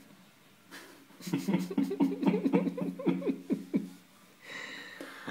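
Human laughter: a fast run of short ha-ha bursts, each dropping in pitch, starting about a second in and lasting under three seconds, followed by a breathy sound near the end.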